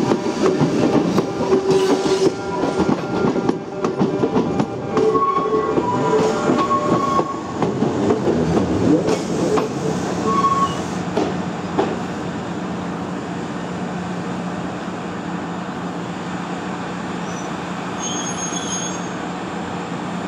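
Yoro Railway 620 series electric train rolling slowly into the station, its wheels squealing and clicking over rail joints. It comes to a stop a little past halfway, after which only the standing train's steady hum remains.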